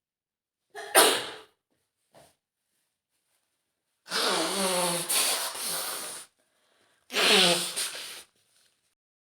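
A woman sneezing three times: a short, sharp sneeze about a second in, a longer voiced one lasting about two seconds from around four seconds in, and a third voiced sneeze with falling pitch near the end.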